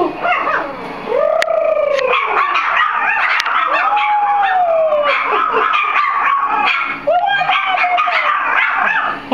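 A litter of four-week-old Soft Coated Wheaten Terrier puppies howling together, set off by a strange voice: several long arching howls rise and fall, overlapped by many short, high yips and whines.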